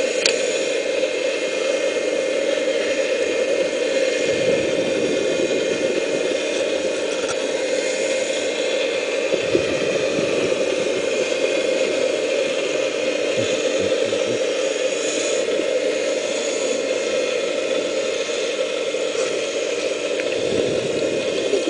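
Vortex Tornado 4-inch venturi dredge running, heard underwater: a steady rushing hum as water and magnetite sand are sucked into the nozzle, with a few dull low thumps.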